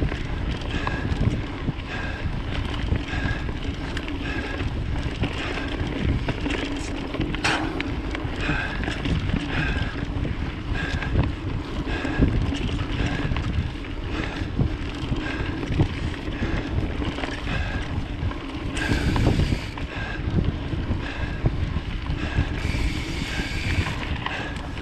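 Mountain bike riding fast along a dirt singletrack: wind buffeting the camera microphone over the rumble of knobby tyres on the trail, with the bike rattling and clicking over small bumps. Two short bursts of hiss come near the end.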